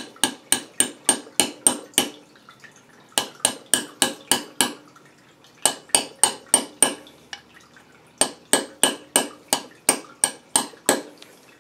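Wooden-handled hammer tapping a steel socket to drive a new oil seal into its bore in a Suzuki FZ50 engine crankcase. Four runs of quick, ringing metallic taps, about four a second, with short pauses between them.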